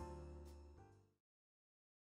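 Background music with sustained notes and a few sharp hits, fading out and ending abruptly about a second in.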